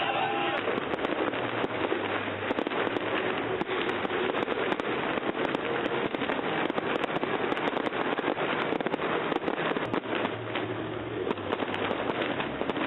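Festive fireworks salute: a dense, continuous crackle of many rapid small bursts going on without a break, with voices of the crowd beneath.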